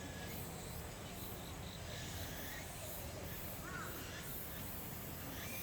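Faint animal calls: a few short chirping cries that rise and fall in pitch, clustered around the middle, over a steady low background hum.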